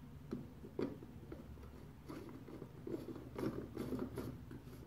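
A candle-shaped light bulb being screwed by hand into the socket of a 3D-printed plastic lamp: irregular crunchy clicks and scrapes from the threads and plastic, sparse at first, then coming thick and fast.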